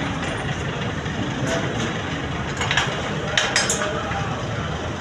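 Metal parts and tools knocking and clinking in several sharp taps over a steady mechanical background noise, starting about a second and a half in.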